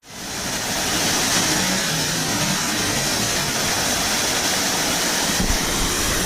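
Steady rushing water with wind buffeting the microphone, starting abruptly.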